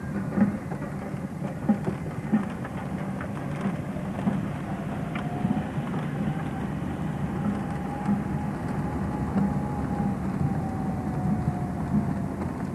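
Car engine and road noise heard from inside a moving car: a steady rumble with scattered crackles, and a faint whine that slowly rises and falls in the middle.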